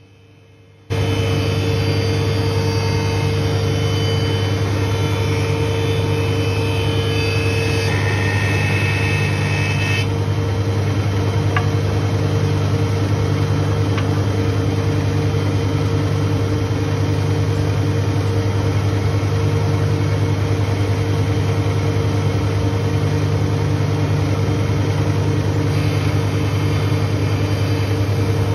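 Surface planer running and planing solid oak slats: a steady motor drone with the cutter block's hiss over it, starting abruptly about a second in. The higher cutting noise shifts partway through as the boards pass over the cutters.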